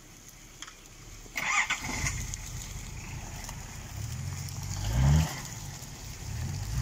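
Off-road vehicle's engine starting with a sudden burst of noise about a second and a half in, then running. It is revved twice, the pitch climbing and dropping back, the second rev beginning near the end.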